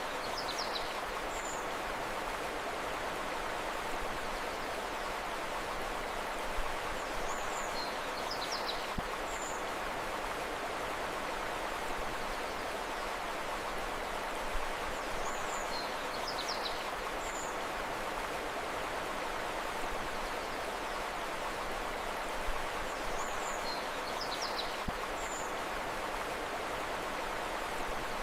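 Steady rushing of a flowing river, with a short burst of bird chirps recurring about every eight seconds.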